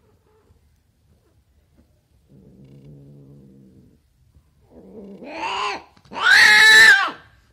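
A female cat in heat caterwauling while being mated: a low growl about two seconds in, then two rising-and-falling yowls, the second longer and loudest near the end.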